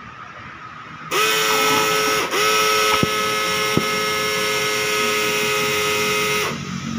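Pulse-jet thermal fogging machine firing up about a second in and running with a loud steady pitched drone, briefly faltering once, then cutting off near the end. Flame shoots from its exhaust barrel, which the operators take for a sign that the fogger is broken.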